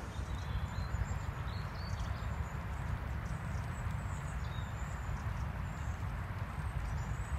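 Wind buffeting the microphone as a steady low rumble, with faint short bird chirps high above it coming and going.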